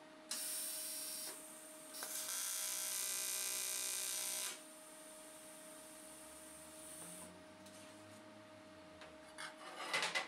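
AC TIG welding arc on aluminium buzzing in two tack welds, a short one of about a second and then a longer one of about two and a half seconds, followed by a fainter hiss. Near the end, a few sharp clinks as the aluminium pieces are handled and set in place.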